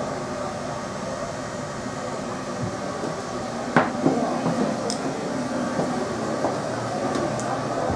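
A lifeboat's diesel engines idling, heard inside the hull as a steady hum with several tones. A sharp metallic knock sounds about four seconds in, followed by a few lighter clicks.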